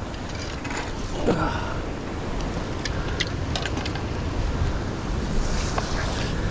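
Fishing reel being wound and clicking as a hooked salmon is reeled in, with scattered sharp ticks over a steady low rumble.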